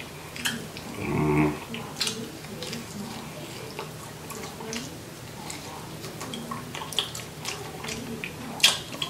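Close-up mouth sounds of eating a crab leg: wet smacks, sucking and sharp clicks as the meat is pulled from the shell and chewed, with a short hummed "mm" about a second in.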